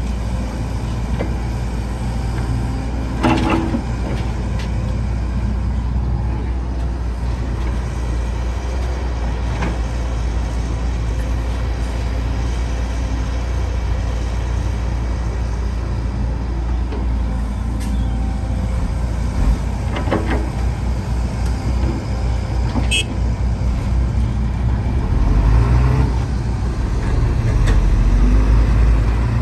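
Caterpillar 312C hydraulic excavator's diesel engine running steadily, with a few sharp metallic knocks from the working machine and the engine getting louder near the end.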